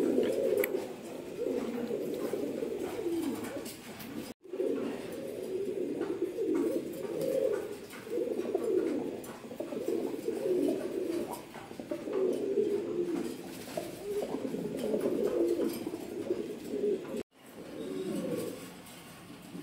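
Lakha fancy pigeons (Indian fantails) cooing, one rolling coo after another. The sound cuts out for a moment twice.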